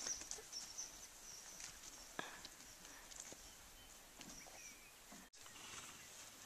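Faint outdoor ambience: soft footsteps of a horse and a person walking on dirt, with a few light clicks and faint high chirps.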